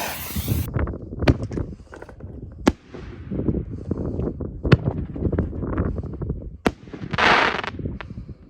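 Fireworks going off: a hiss at the start, then sharp bangs every one to two seconds with dense crackling between them, and a short hissing burst near the end.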